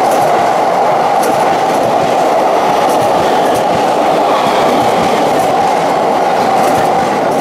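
JR commuter electric train cars running past close by along the platform: a steady loud rumble of steel wheels on the rails, with a few faint clicks of wheels over rail joints.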